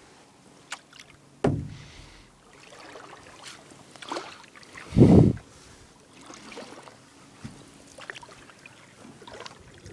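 Kayak paddling on a river: water swishing and sloshing with paddle strokes, the strongest about a second and a half in and again about five seconds in, with a light click before the first.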